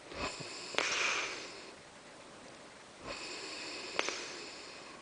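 A sleeping person snoring: two noisy snoring breaths about three seconds apart, each with a sharp click partway through.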